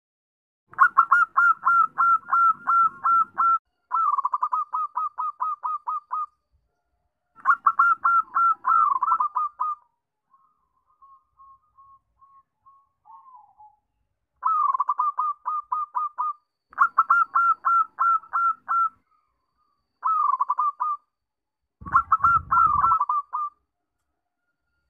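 Zebra dove song: bouts of rapid staccato cooing notes, each bout two to three seconds long, with a softer, quieter run of notes midway.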